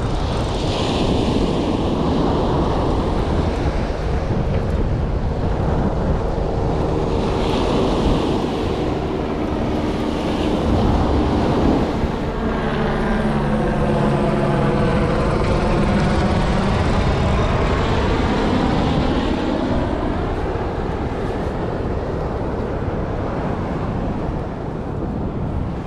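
An airplane engine drone passing overhead, falling in pitch about halfway through as it goes by. It sounds over surf washing in and wind on the microphone.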